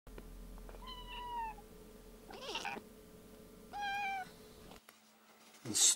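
A cat meowing twice, the first call sliding slightly down in pitch, the second a little shorter, with a brief rustle between them.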